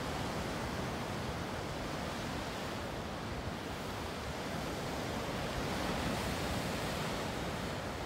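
Atlantic surf breaking and washing white over a rocky shore: a steady rush of breaking water that swells a little about six seconds in.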